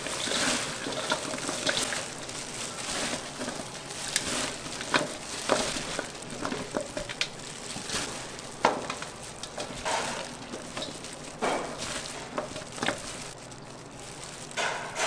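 Kitchen food-preparation sounds: a steady hiss with scattered sharp clinks and knocks of utensils and dishes.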